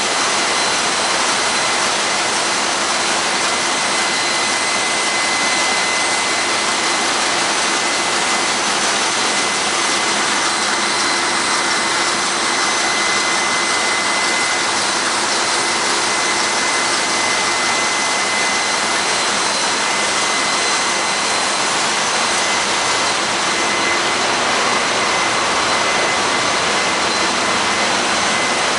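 Loud, steady din of a tanker's engine room machinery, the running engines, fans and pumps blending into one even roar with a steady high whine over it.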